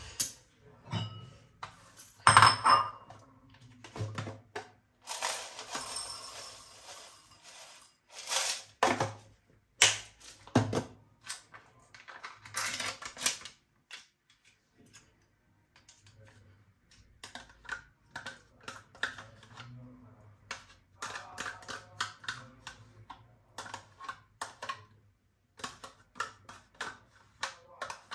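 Breakfast being handled on a kitchen counter: irregular clicks, taps and knocks of plastic food containers and a ceramic bowl, with a few seconds of rustling noise about five seconds in.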